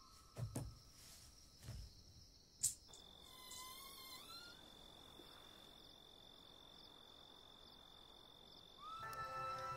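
Crickets chirping at night, faint and steady, with a few soft knocks and a sharp click in the first three seconds. A thin steady high tone holds through the middle, and near the end a steam-engine whistle starts up and holds.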